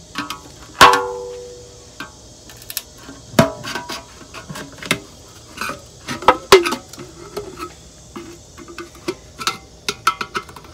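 A screwdriver prying open the metal lid of a one-gallon can of carburetor cleaner: a run of sharp metallic clicks and clanks with short ringing from the can, loudest about a second in and again past the middle.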